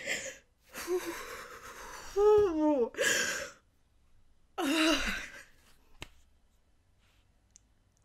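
A woman crying: sniffles and shaky breaths, with a wavering, falling sob about two seconds in and another shorter one about five seconds in, between them a sharp sniffling breath in.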